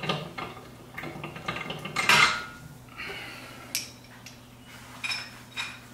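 Small metal clicks and clinks as the hitch lock of a 1UP USA bike rack is worked free of its mount and handled with its key, the loudest clink about two seconds in.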